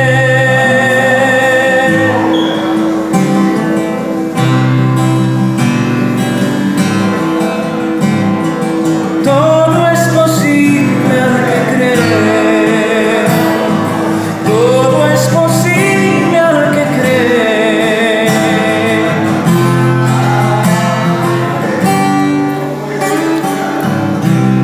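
Steel-string acoustic guitar played with chords and picked notes, with a man's voice singing a melody over it in places.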